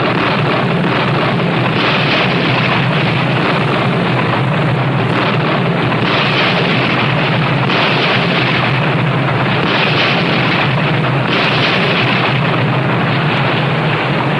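Battle sound effects of burning buildings and explosions: a loud, continuous roar that swells several times.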